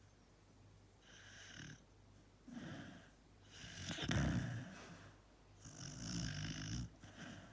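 A sleeping dachshund snoring: a run of snoring breaths about every one to two seconds, the loudest about four seconds in.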